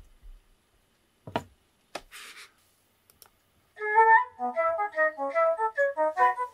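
A melody of short, clear notes played through a small vibration speaker sitting on a glass jar filled with styrofoam pellets, so the jar itself acts as the sounding body. A couple of clicks come first, and the music starts about four seconds in.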